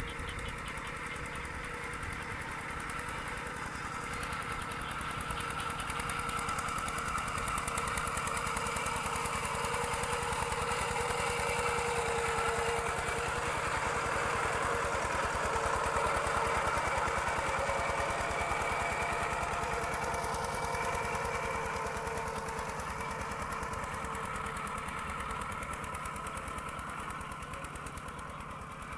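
Kubota RT120 horizontal single-cylinder diesel engine of a two-wheel walking tractor running under load as it tills a muddy paddy, with a fast, even knocking beat. It grows louder through the middle and fades again near the end.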